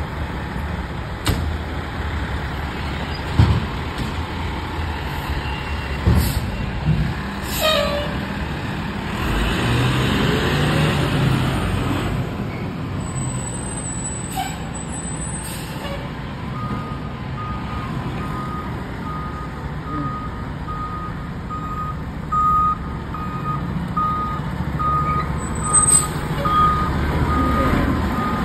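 Fire truck diesel engines running, with a few sharp sounds in the first half; from a little past halfway a backup alarm beeps about once a second as an apparatus reverses into its station.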